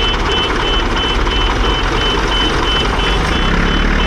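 A vehicle reversing alarm beeps about twice a second over the steady low running of heavy diesel engines: the SKOT eight-wheeler and the backhoe towing it out of the pit.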